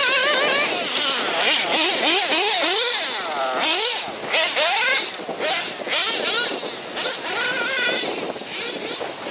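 Off-road RC buggy's motor revving up and down as it drives the dirt track, its pitch swinging quickly with each throttle change, and strong wind gusting over the microphone.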